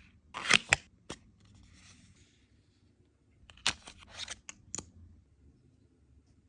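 Makeup packaging being handled during an unboxing: two sharp clicks and a snap, a stretch of soft rustling, then a quick run of clicks and snaps.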